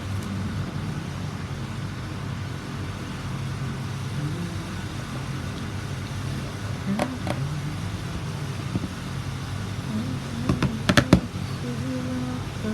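Small sharp clicks and taps of a phone's parts and casing being handled and snapped back together, a couple about halfway and a quick louder cluster near the end, over a steady low rumble.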